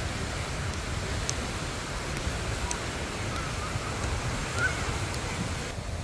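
Wind buffeting the microphone, heard as a low rumble, over a steady hiss of small waves breaking on a sandy beach.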